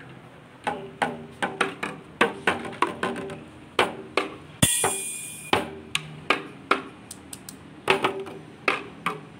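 A children's toy drum kit struck with drumsticks in quick, uneven hits, with one cymbal hit ringing on briefly about halfway through.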